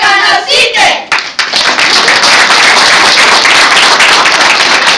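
A group of voices for about the first second, then a roomful of people clapping.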